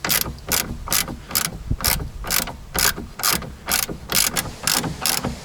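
Ratchet wrench clicking in steady back-and-forth strokes, about two a second, undoing nuts on a car's rear suspension strut.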